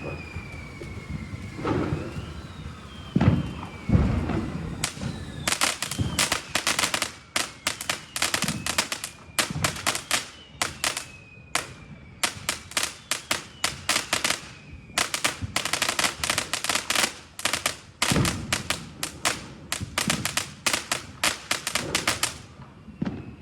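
Multi-shot consumer fireworks cake (Chinese batería) firing: a few deep launch thumps in the first seconds, then long runs of rapid sharp cracks in clusters, stopping about a second before the end.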